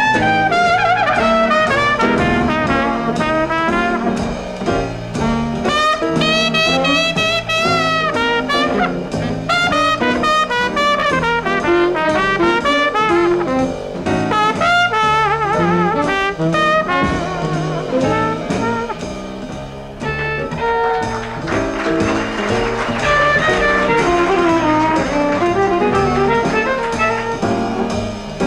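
Live small-group jazz: a trumpet plays a solo line with vibrato over saxophone, bass and drums. About twenty seconds in the music changes to another performance, with a violin bowed.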